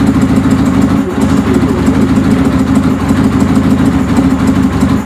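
Suzuki GS550's air-cooled inline-four engine idling steadily, freshly brought to an idle by closing the carburettors' idle-circuit air screws, with the carbs not yet properly synchronised.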